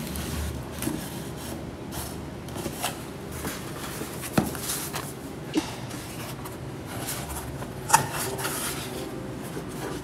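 Cardboard packaging being handled: a box slid out of its outer sleeve and its lid opened, with cardboard rubbing and scraping and a few sharp taps, the sharpest about eight seconds in.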